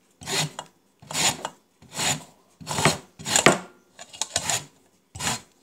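A lemon rubbed on a hand grater to take off the zest: a dry scrape with each stroke, about eight strokes at a steady, even pace.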